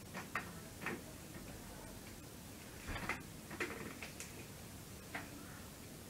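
Faint, irregular clicks and light knocks, about half a dozen over a few seconds, against quiet room hiss.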